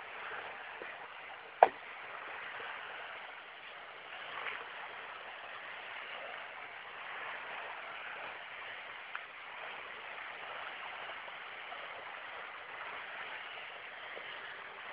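Steady wash of sea water against a rocky shore. One sharp click about a second and a half in is the loudest sound.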